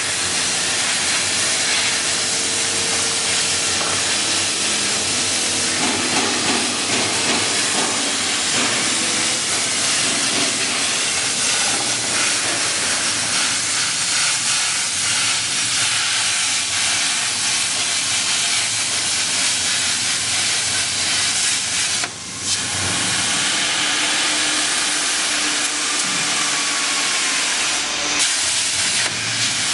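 Hypertherm-powered CNC plasma torch cutting sheet metal: a loud, steady hiss of the plasma arc. It drops out briefly about two-thirds of the way through, then carries on.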